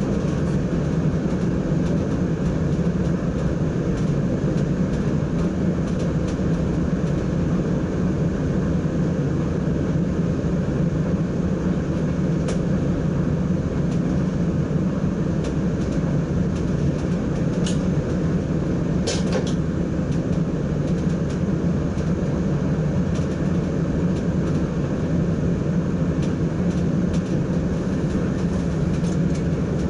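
Steady running noise inside the driver's cab of an NS ICM (Koploper) electric multiple unit travelling along the line, with a few short clicks midway.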